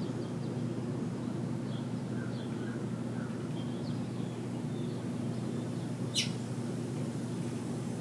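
Small songbirds chirping faintly and sporadically over a steady low background rumble, with one sharp click about six seconds in.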